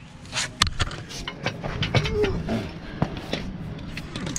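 Scattered sharp metallic clinks and knocks of hand tools and a removed steel exhaust pipe being handled on concrete.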